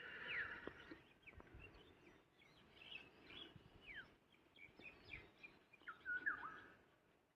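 Several wild birds calling in forest: short chirps and quick descending whistles from different birds, overlapping, with a louder call near the start and another about six seconds in.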